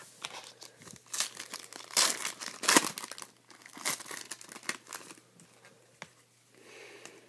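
A trading-card pack's foil wrapper being torn open and crinkled by hand, a run of crackling rustles that is loudest a couple of seconds in and then dies down to faint handling.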